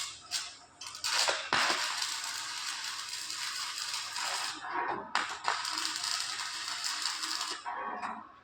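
Electric arc welding. After a few sharp clicks as the arc is struck, it crackles and sizzles steadily for several seconds, breaks off briefly about five seconds in, restarts, and stops near the end.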